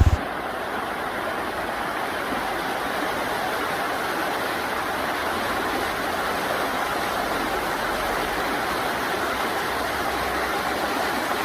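River water rushing steadily over rocks, an even, unbroken hiss.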